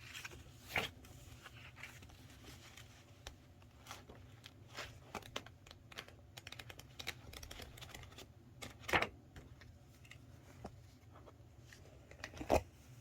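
Irregular light clicks and taps with some rustling, like keys or a pen and paper being worked at a desk, over a steady low hum. Three louder knocks stand out: about a second in, around nine seconds in, and near the end.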